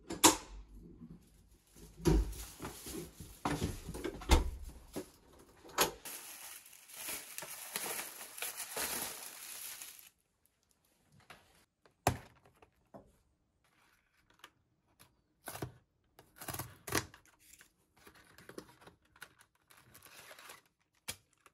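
A door clunking near the start, then a thin plastic shopping bag rustling and crinkling as items are lifted out, then a cardboard soup box being torn open flap by flap, with short tearing and clicking sounds.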